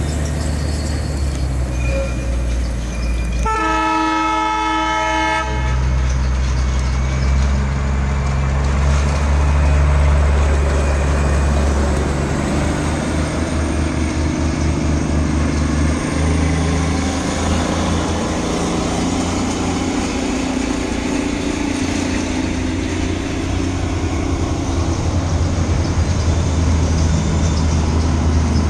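Diesel locomotive running with a steady low engine rumble, sounding its horn once for about two seconds a few seconds in; the engine note steps up about two-thirds of the way through.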